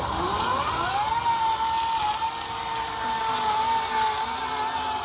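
Ego 18-inch battery-powered electric chainsaw winding up to speed, a whine that rises over about the first second and then holds steady and high, with the chain running into the wood for the felling notch.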